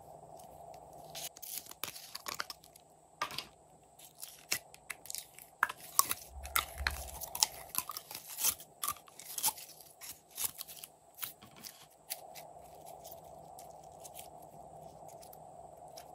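Blue slime being squeezed out of a thin, ribbed clear plastic tube container, giving irregular crackling, popping clicks of the flexing plastic and the slime, which stop about three-quarters of the way through.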